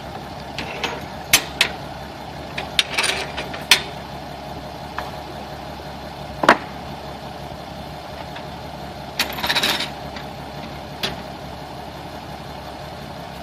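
An engine running steadily, with scattered sharp knocks and clanks over it and a short rattle about two-thirds of the way through.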